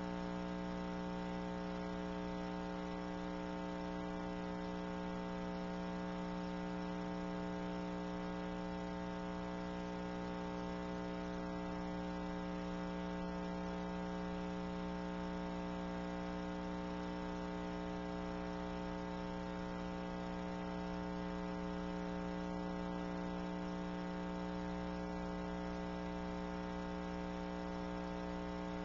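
Steady electrical mains hum: a buzz of many even tones that holds unchanged throughout.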